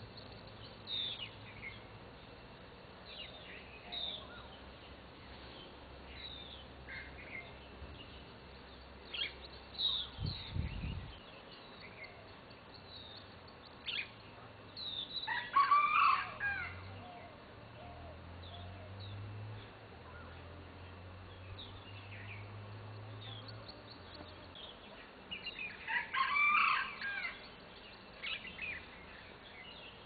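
Birds chirping and calling, with short scattered chirps throughout and two longer, louder calls, one about halfway through and one near the end.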